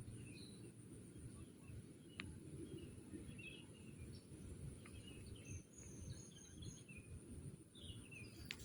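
Faint, scattered bird chirps over a low, steady outdoor background, with a single faint click about two seconds in.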